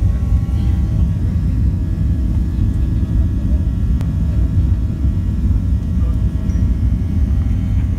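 Airliner on its takeoff roll, heard inside the cabin: a loud, steady low rumble of the engines at takeoff power and the wheels on the runway, with faint steady engine whine tones above it.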